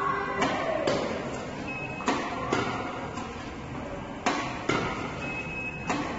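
Badminton shuttlecock feeder firing shuttles, each launch followed about half a second later by the sharp crack of a racket returning it, in pairs roughly every two seconds and echoing in the hall. Twice, a brief high squeak sounds between them.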